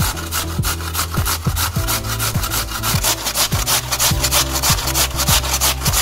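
Raw potato being grated on a stainless steel box grater: a fast, even run of scraping strokes, several a second.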